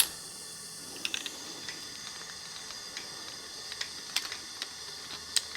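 Scattered light clicks and taps of hand work on an engine's valve spring assembly, irregular and a few per second at most, over a steady faint hiss.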